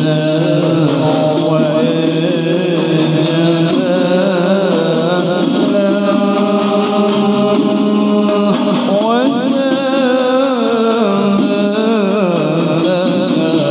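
A man's voice singing an Arabic devotional syair (sholawat poem) in a slow, melismatic style. He holds long notes that waver and slide between pitches.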